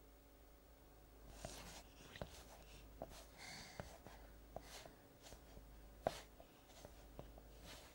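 Near silence: a quiet room with a few faint soft rustles and small ticks.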